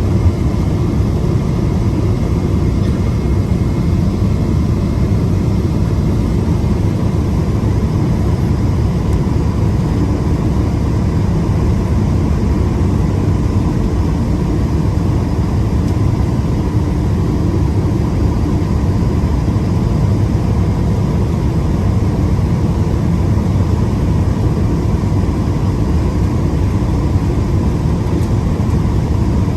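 Steady cabin noise of a Boeing 777-200ER in flight: engines and rushing air heard inside the cabin, with a faint steady tone above it.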